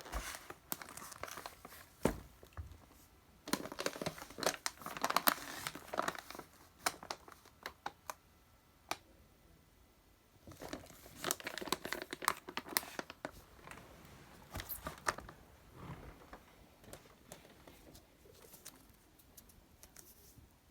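Plastic-wrapped fireworks packaging being handled and crinkled, in irregular bursts of rustling and clicks with quieter gaps between them.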